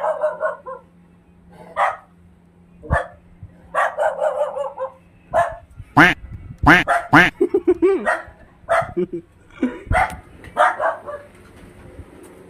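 A dog barking repeatedly, single barks spaced out with a quick run of barks about six to eight seconds in.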